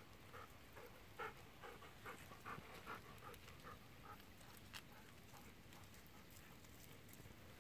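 Golden retriever panting faintly in quick, even breaths, about two or three a second, fading after about four seconds.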